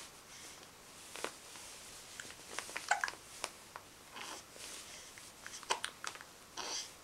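Three-month-old baby hiccuping: several short, sharp hiccups, with soft breaths between them.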